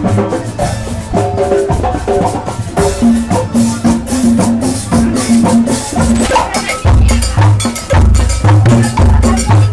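Marching band of saxophones, brass and drums playing a lively tune, with a steady drum beat; heavier bass notes come in about seven seconds in.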